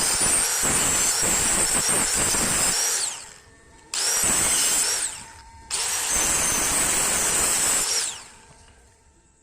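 A high-speed power tool working wood, running with a high whine three times. It starts suddenly each time and winds down with a falling whine as it is let off, the last time about eight seconds in.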